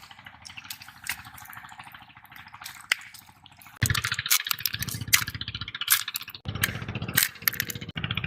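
Small wet shellfish clicking and rattling against each other with water dripping, as they are scooped up in a hand net. About four seconds in it turns suddenly louder, with a low rumble under the clicks.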